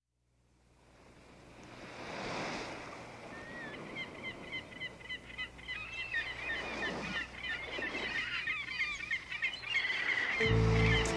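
Surf washing in and out in slow swells while many birds chirp and call, fading up from silence. Near the end, band instruments come in with low sustained notes.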